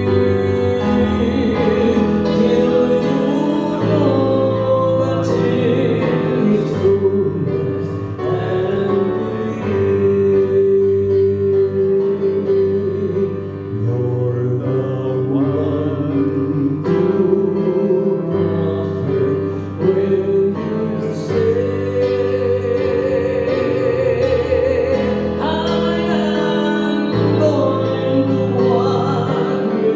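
Church worship music: a song sung over held accompaniment chords and a moving bass line.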